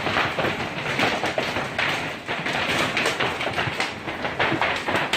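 Heavy hail pelting down in a hailstorm: a dense, irregular clatter of hailstones striking hard surfaces.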